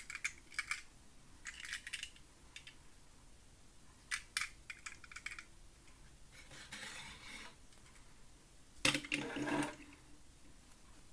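Light clicks and clinks from a small die-cast metal toy car being handled, in several short clusters, with a brief rustle about halfway through and a louder knock and scrape near the end.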